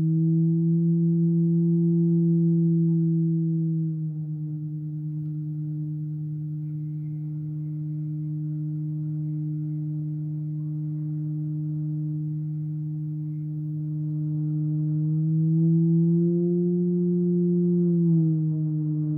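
Halldorophone feedback drone on its D string, a sustained tone beating against the sympathetic string as both pitches are bent by hand. The note sits slightly raised, drops about four seconds in with a quick fluttering beat, holds steady, then bends up again and falls back near the end.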